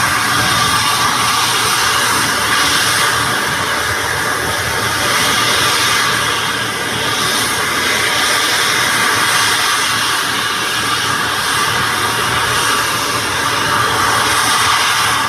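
Large turbofan jet engine running steadily, a loud even rushing noise that swells and eases slightly over several seconds.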